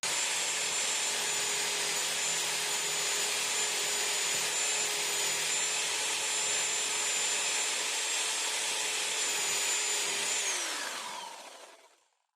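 Electric power tool running steadily at full speed, then switched off, its motor whine falling in pitch as it winds down over the last couple of seconds.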